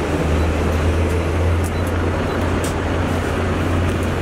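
Steady city road traffic: a continuous low rumble of passing vehicles.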